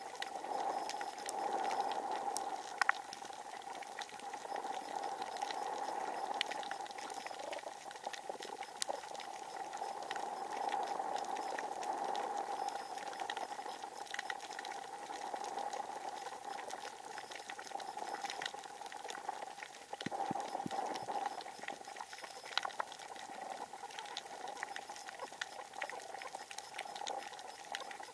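Underwater reef ambience picked up through a camera housing: a steady, muffled rushing that swells and fades slowly, sprinkled with many sharp, irregular clicks, the crackling of snapping shrimp.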